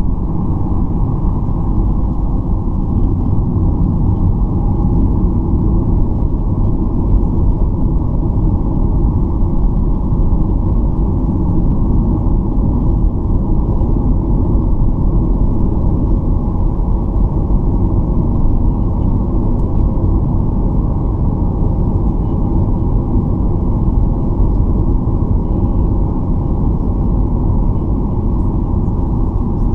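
Steady low cabin rumble of a Boeing 737-800 taxiing after landing, its engines at idle.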